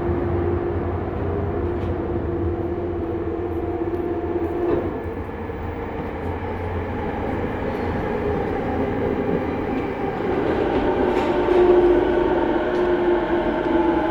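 Running sound inside a 70-000 series electric train car: wheels rumbling on the rails under a steady traction-motor whine. The motor tones drift up a little midway and sink in pitch near the end as the train's speed changes.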